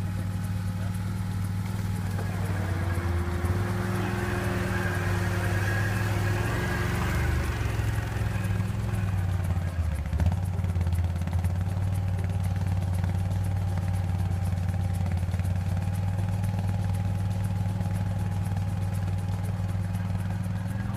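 Can-Am ATV engine running steadily at low revs as the quad crawls slowly over rough forest ground, with small changes in throttle a few seconds in and a brief knock about ten seconds in.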